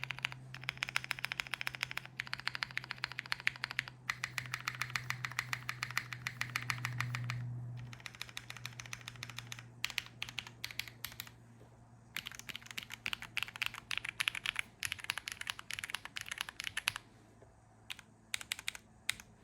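KBDFans Tiger80 mechanical keyboard being typed on in fast runs of keystrokes with short pauses between. It has lubed Rosso Corsa tactile switches on a polycarbonate plate, GMK keycaps, no case foam and a tape mod.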